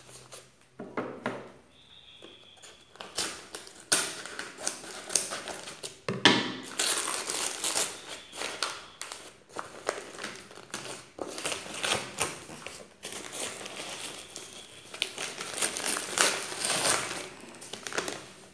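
Cardboard box and brown paper wrapping being torn open and crumpled by hand: irregular tearing, crackling and rustling, sparse for the first few seconds and then almost continuous.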